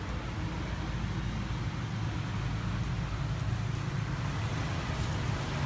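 Steady low rumble of an idling car engine.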